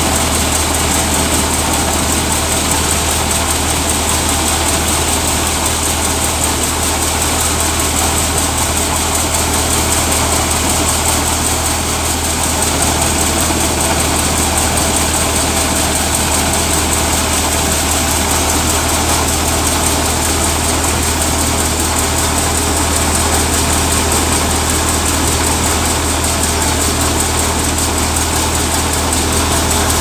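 Tractor-driven wheat thresher running at steady working speed: a constant low drone with an even rushing noise over it.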